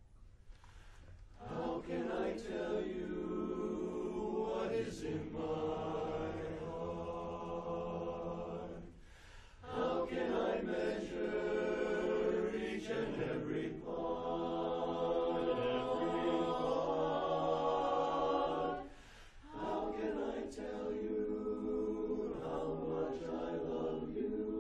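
Mixed barbershop chorus of men's and women's voices singing a cappella in close four-part harmony. Long held phrases start softly and swell about a second and a half in, with brief breaks for breath about nine and nineteen seconds in.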